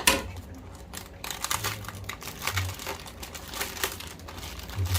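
Plastic packaging crinkling and crackling with irregular small clicks as a package is cut open with a knife, starting with one sharp click.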